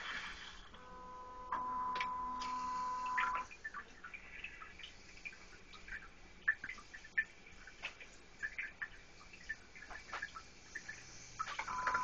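Toilet seat bidet running: a steady whine from about a second in that stops a few seconds later, then water spraying and dripping into the toilet bowl, and the whine starts again near the end.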